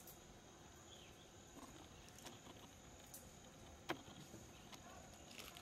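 Faint natural ambience: insects drone steadily at a high pitch, with scattered small clicks and one sharper click about four seconds in.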